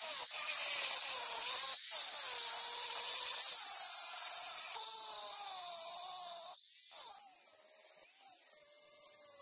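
Angle grinder with an abrasive disc grinding down weld build-up on a forged steel hammer head, the motor's whine dipping and wavering as the load changes. About two-thirds of the way through it comes off the work and the sound drops to a much quieter whine.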